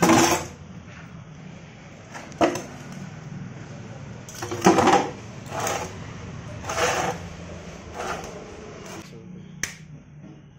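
A heavy metal wheel hub being turned and shifted by hand on a steel bench covered in metal shavings: a series of short scrapes and knocks, then a sharp clink near the end, over a steady low hum.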